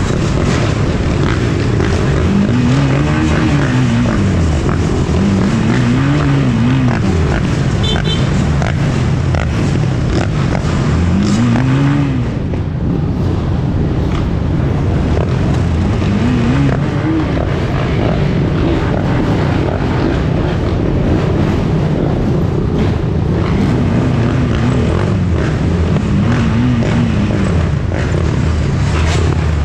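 Dirt bike engine revving up and dropping back again and again, one rise and fall every few seconds, over a steady rushing road noise.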